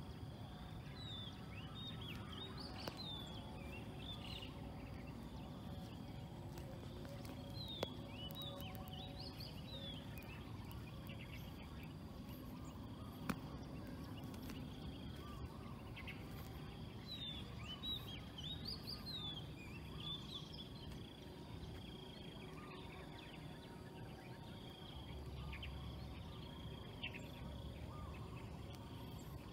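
Small birds twittering in three short bouts of quick, high, falling chirps over steady low background noise.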